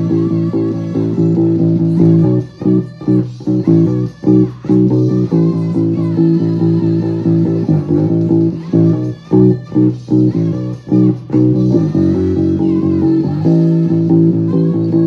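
A song with an electric bass guitar plucked along to it. Twice the music breaks into short, choppy stop-start hits before the steady groove comes back.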